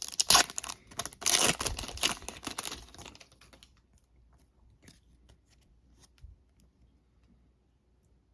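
A 2021 Panini Donruss football retail pack's wrapper being torn open and crinkled for about three and a half seconds, then only faint scattered ticks as the handling quiets down.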